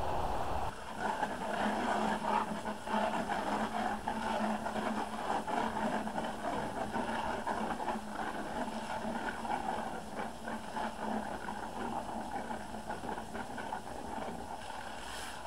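Garden hose nozzle pouring a steady stream of water into a plastic bucket of husked black walnuts, rinsing them; it starts about a second in.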